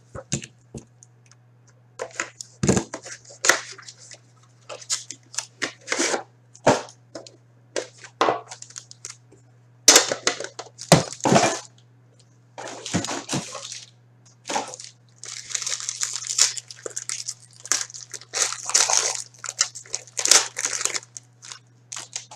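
Hands tearing open and crinkling the foil wrapper of a pack of 2016-17 Upper Deck Premier hockey cards, then handling the cards. It comes as irregular bursts of crackly rustling and sharp clicks, with longer crinkling stretches in the second half.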